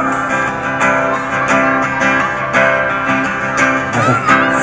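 Live band playing a strummed guitar passage with bass, an instrumental stretch between sung lines of a song.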